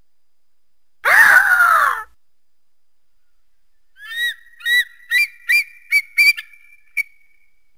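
Eagle calls: one harsh scream falling in pitch about a second in, then a run of short, high, whistled chirps from about four seconds in, coming faster until they stop at about seven seconds.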